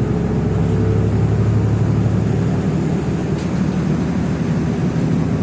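Steady low drone of a moving road vehicle heard from inside, engine and road noise running evenly.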